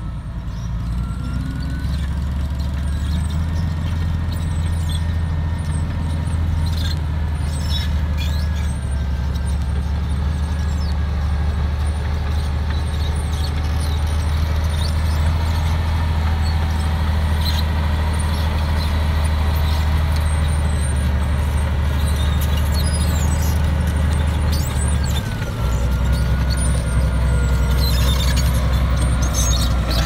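Komatsu D53A crawler bulldozer's diesel engine running with a steady low drone as the dozer moves over dirt, its steel tracks giving a wavering high-pitched squeal and some clanks.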